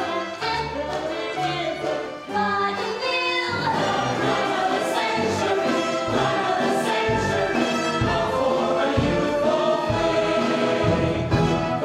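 Musical-theatre cast singing in chorus with a pit orchestra. It is thinner for the first few seconds, then fuller, with heavy bass notes coming in after about seven seconds.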